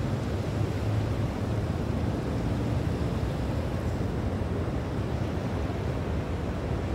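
Steady low rumble of wind and sea surf, with wind buffeting the microphone.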